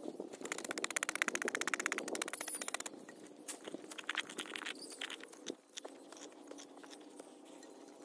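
Hands scraping and scooping dry soil out of a small hole, with a fast run of rasping strokes in the first few seconds, then a metal tin cup scraping against the earth as it is pressed into the hole.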